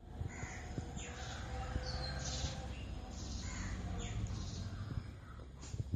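Several birds calling outdoors, short overlapping calls and chirps one after another, over a steady low rumble.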